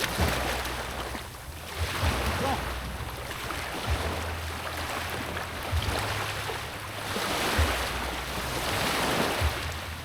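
Sea waves washing in, a hiss that rises and falls every few seconds, with wind rumbling and buffeting on the microphone.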